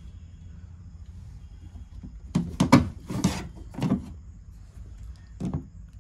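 Plastic dome-camera mounting base knocking and scraping against a plastic ceiling panel as it is pressed into place by hand: a cluster of rough knocks and rubs between about two and four seconds in, and one more near the end, over a low steady hum.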